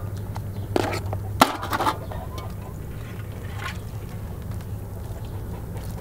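Live mud crabs knocking and scraping against a metal basin: a few sharp clacks in the first two seconds, the loudest about a second and a half in, over a steady low hum.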